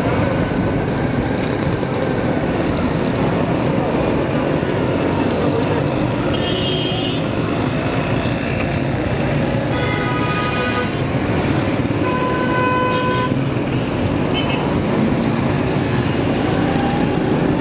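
Steady rumble of a motorcycle ride through city traffic, with vehicle horns honking three times: about a third of the way in, then twice more around two-thirds in.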